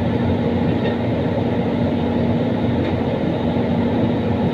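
Heavy diesel engine running steadily at constant speed, a loud even rumble with a steady hum.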